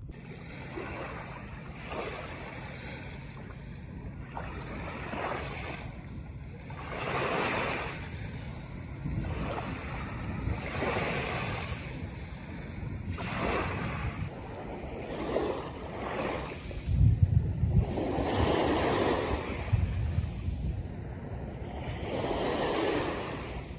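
Small waves washing in and drawing back on a sandy beach, swelling and fading every couple of seconds. Wind buffets the microphone, with a strong gust about two-thirds of the way through.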